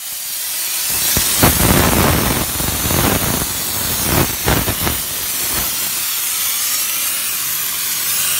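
Steam jetting continuously from the trigger gun of a 12-bar LPG-fired steam car washer: a loud, steady hiss. Uneven lower-pitched noise sits under the hiss for the first five seconds or so.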